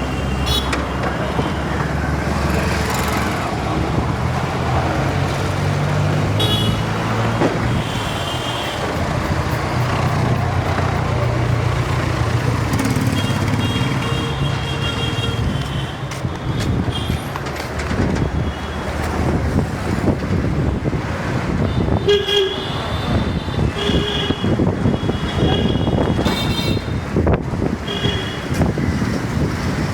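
Busy Indian street traffic: vehicle horns toot again and again, thickest in the second half, over a steady engine hum that fades out about halfway through and general road noise.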